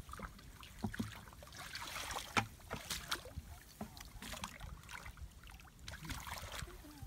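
Shallow muddy water sloshing and splashing irregularly as a person wades barefoot and gropes in it by hand for fish, with a few short sharp splashes, the loudest about two and a half seconds in.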